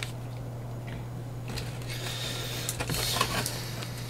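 Hands handling plastic during an unboxing: a light click about a second in, then scratchy rustling with several sharp clicks through the middle of the clip, over a steady low hum.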